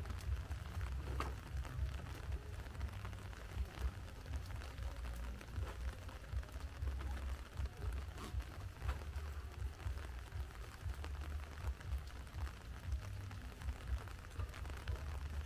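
Crackling rustle of a large banana leaf and dry leaf litter being handled and walked on, with scattered light ticks and crackles over a low, uneven rumble.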